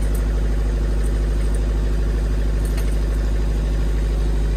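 Marine diesel engine running steadily at idle in the enclosed engine room, a constant low hum with an unchanging pitch.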